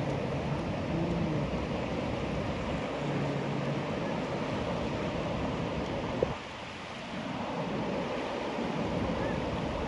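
Steady rush of a fast-flowing, swollen muddy river. A single sharp click about six seconds in, after which the noise dips briefly for about a second.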